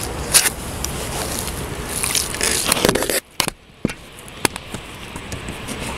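A hooked pike splashing at the surface while it is landed by hand, mixed with scraping and rustling of a sleeve brushing against the microphone and sharp handling clicks. The sound drops out suddenly about three seconds in for under a second.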